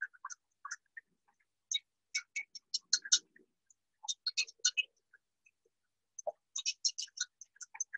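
Wire whisk clicking rapidly against the sides of a stainless steel saucepan as milk is whisked over the heat. The clicks come in quick runs with short pauses between them.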